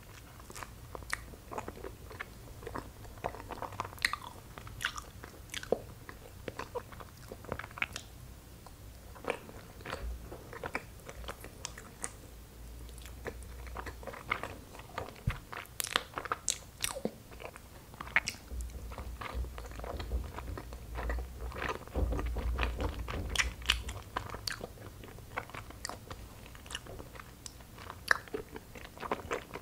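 A person chewing soft cream-cheese-filled injeolmi rice cake: irregular, wet mouth clicks and smacks.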